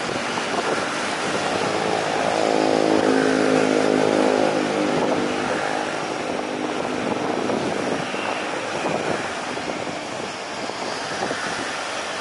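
Lockheed C-130 Hercules taxiing, its four Allison T56 turboprops and four-bladed propellers running with a steady drone. A humming propeller tone swells louder about two seconds in and fades back by about six seconds.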